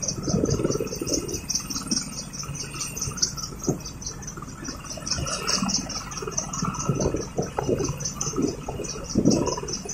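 Insects chirping in a fast, even pulse, over irregular low rumbling and rustling that grows louder near the end.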